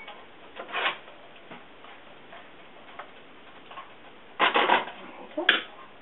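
A spoon scraping and knocking against a frying pan while tomato sauce is stirred: a brief scrape about a second in, a quick run of scrapes near the five-second mark and a sharp tap just after, with faint ticks in between.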